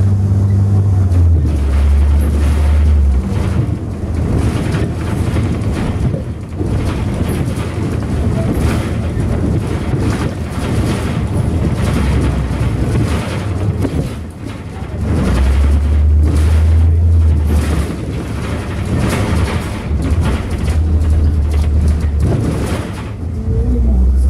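A city bus in motion heard from inside the passenger cabin: a deep engine drone that swells and fades several times over continuous road rumble, with frequent short knocks and rattles from the body.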